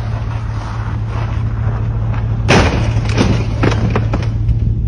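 Steady low engine hum. About halfway through comes a loud crunching impact, followed by a few shorter knocks: a car sliding on an icy road and colliding with another vehicle.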